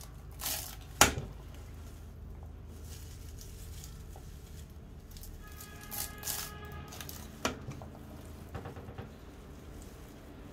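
Hand-lever herbal medicine slicer chopping bunches of fresh leaves: a sharp chop about a second in as the blade comes down, then several lighter cuts and leafy crunches in the second half.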